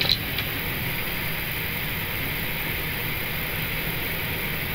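Steady rush of engine and air-conditioning noise inside an Airbus A320 cockpit, engines at idle while taxiing in after landing, with a brief click just after the start.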